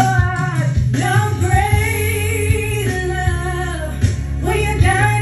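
A woman singing a gospel song live, drawing out long notes that bend in pitch, over musical accompaniment with a steady bass.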